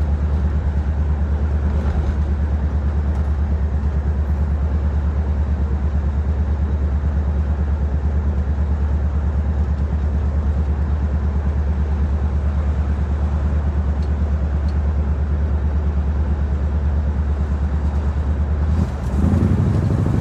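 1963 Chevrolet Impala SS's engine heard from inside the cabin while driving: a steady, low, pulsing drone. Near the end it dips briefly, then comes back louder as the car accelerates.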